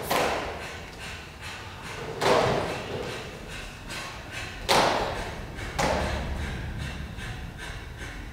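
Four heavy thuds spread through the moment, each followed by a fading echo in the theatre hall.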